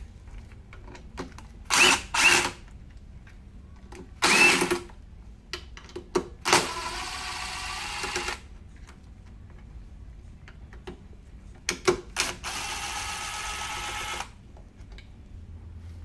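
Cordless drill-driver with a hex bit backing out the Allen head screws on the jet ski's air filter covers: a few short bursts, then two steady runs of the motor of about two seconds each, roughly six and twelve seconds in.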